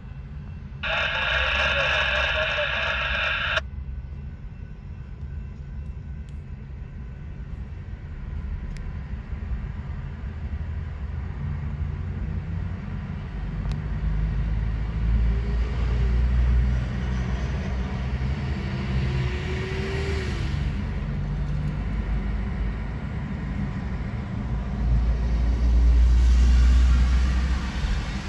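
Loaded coal train's hopper cars rolling past, a steady low rumble that swells twice, with road traffic passing close. About a second in, a horn sounds one steady blast of nearly three seconds that cuts off abruptly.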